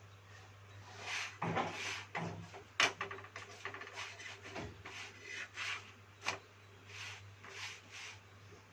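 Rolling pin rolling out chapati dough on a board: repeated short rubbing strokes, with a couple of sharp knocks about three and six seconds in. A steady low hum runs underneath.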